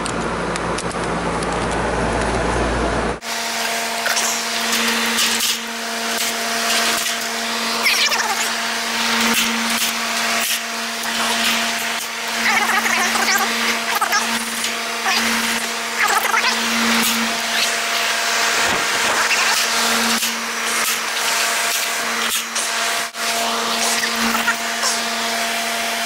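Outdoor air-conditioning condensing unit running: a steady motor hum with the whir of the fan, with rustling and clicking of tools being handled close by. The sound changes abruptly about three seconds in.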